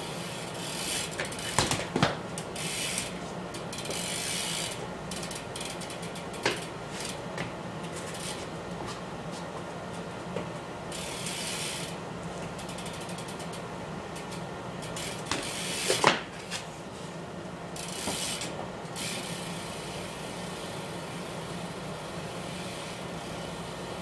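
BMX bike being ridden through tricks: the rear hub's freewheel ratchets in runs of rapid clicks. A few sharp knocks of the tyres landing on the floor stand out, the loudest about two-thirds of the way in.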